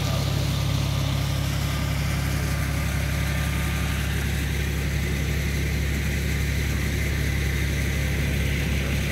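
John Deere 5045D tractor's three-cylinder diesel engine running steadily with a deep, even hum.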